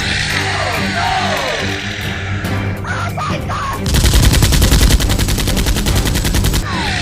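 Background music with a steady beat, and about four seconds in a rapid burst of automatic gunfire lasting nearly three seconds: a dubbed machine-gun sound effect.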